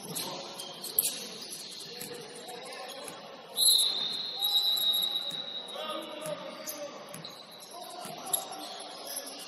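Basketball game in a gym: a ball thuds a couple of times, and about three and a half seconds in a high, shrill referee's whistle sounds, starting sharp and trailing off over about two seconds, followed by players calling out.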